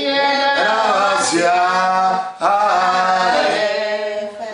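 A man singing a slow song in long held notes, gliding between them, with a short break about two and a half seconds in.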